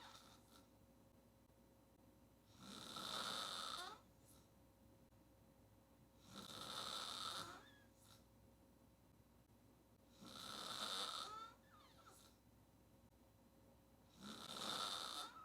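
A woman snoring on her back with her mouth wide open: four long snores, each about a second and a half, coming about every four seconds with quiet breaths between them.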